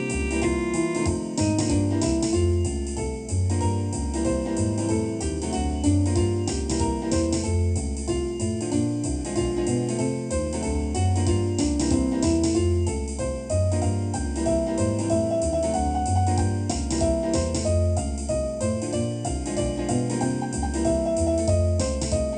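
Jazz band playing with piano in the lead: quick melodic lines over a bass line and drums with steady cymbal strokes.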